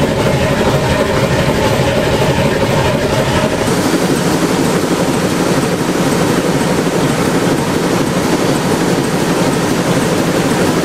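Werkspoor TM356, a 320-litre six-cylinder engine from 1935, running steadily and loudly. A steady hum mixed into it stops about four seconds in.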